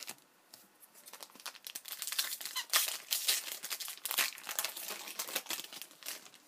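Foil hockey card pack being torn open and its wrapper crinkled, a dense crackling run of sharp crinkles lasting about five seconds.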